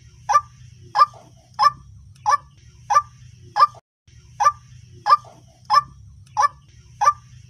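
White-breasted waterhen (ruak-ruak) calling, a sharp repeated note about every two-thirds of a second, with a brief break a little past halfway. A faint steady hiss and low hum lie beneath the calls.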